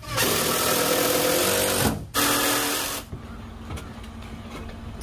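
Cordless drill running under load as it drives screws into a wooden rafter: one long run of nearly two seconds, then a shorter one right after, stopping about three seconds in.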